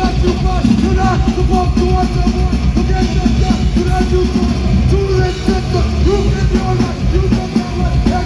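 Live punk band playing loud and fast: distorted guitars, bass and drums, with yelled vocals over the top.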